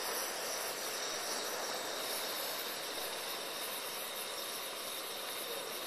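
Gas camp stove burner running steadily under a lidded pot, giving an even hiss.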